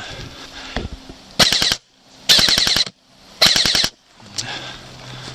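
Airsoft gun firing on full auto: three short bursts of rapid shots in quick succession.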